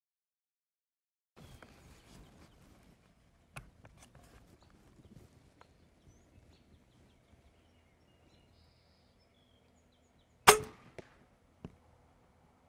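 Ravin crossbow fired once from a bench rest about ten seconds in: a single sharp, loud release snap with a brief ring, followed about a second later by a much fainter click. Before the shot only faint background and a few small clicks.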